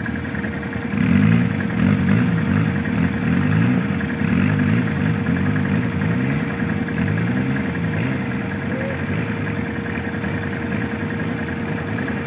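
800 cc ATV engine revving up and down under load as the quad climbs a rough track, its pitch rising and falling again and again. It is loudest in the first couple of seconds, then the revs settle and ease off after about nine seconds as the quad pulls away.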